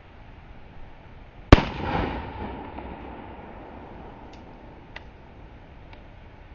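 A single .40 caliber pistol shot from a Walther PPS loaded with hollow points, fired outdoors into steel washer-and-dryer pedestals: one sharp crack about a second and a half in, with a ringing tail that dies away over about a second.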